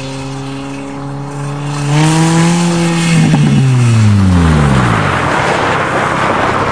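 Nissan 200SX driven hard on a gravel lane: the engine revs up, holds, then its note falls away. A loud rush of tyres scrabbling and gravel spraying follows as the car slides past.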